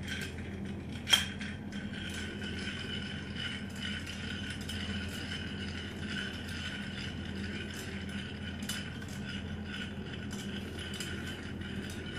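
Long bar spoon stirring ice in a glass, a steady run of small clinks of metal and ice against the glass, with one sharper clink about a second in.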